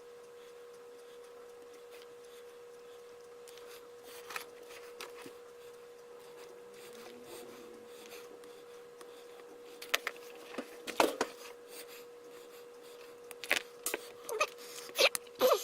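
Clicks and small knocks of plastic controller parts and tools being handled on a workbench, over a steady faint hum. The clicks come singly at first, then in clusters near the middle and toward the end.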